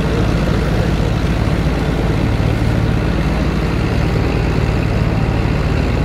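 Farm tractor's diesel engine running steadily under load as it pulls a three-furrow mounted plough through the soil.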